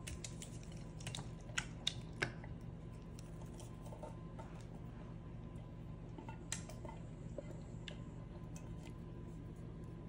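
Light clicks and taps as cherry pie filling is emptied from a tin can into a glass baking dish, a handful of sharper ones about two seconds in and one more past the middle, over a steady low hum.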